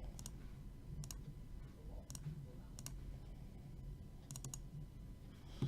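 Faint, scattered clicks from computer use, about one a second, with a quick double click near the end, over a low steady hum.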